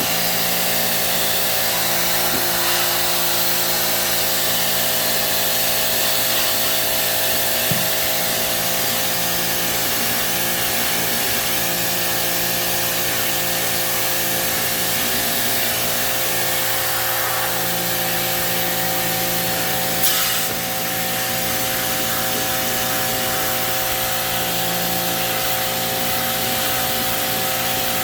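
Cleaning pressure-washer pump running steadily with a hiss of water spray, as an air conditioner's heat exchanger coil is washed. There is a sharp knock about twenty seconds in.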